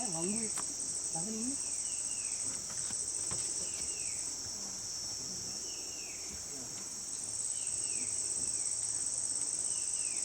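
Insect chorus of crickets giving a steady high-pitched shrill that eases slightly midway, with short falling chirps repeating about once a second.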